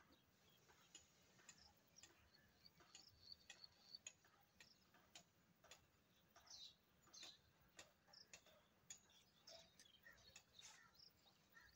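Near silence with faint, irregular light clicks and a few short high chirps.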